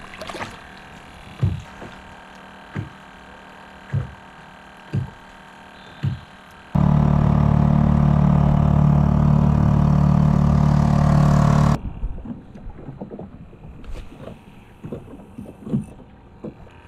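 Small waves slapping against a kayak's plastic hull, about once a second. A little over a third of the way in, a loud steady drone cuts in and stops abruptly about five seconds later. Light water lapping follows.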